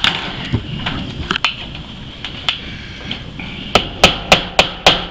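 Hammer driving a nail into a tin roof: a few scattered light knocks, then near the end a quick run of sharp strikes, about four a second.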